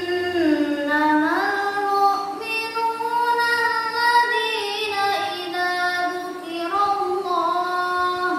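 A young girl reciting the Qur'an in the melodic tilawah style: one long, ornamented phrase with the pitch gliding up and down.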